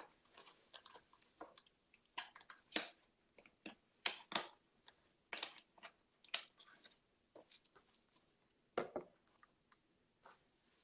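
Irregular short clicks and taps close to the microphone, a dozen or more scattered unevenly, the loudest about three and four seconds in.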